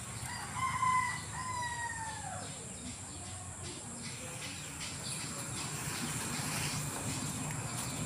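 A rooster crowing once: one call of about two seconds in two parts, the second part falling in pitch at its end.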